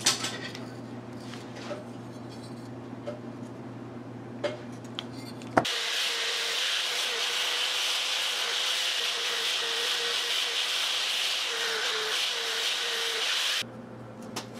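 A motor-driven wheel runs steadily with a brass piece held against it: a steady hum under a loud hiss, polishing or scouring the bent brass bowtie. It starts abruptly about a third of the way in and stops abruptly near the end. Before it there are a few light clicks and taps of pliers working the brass sheet.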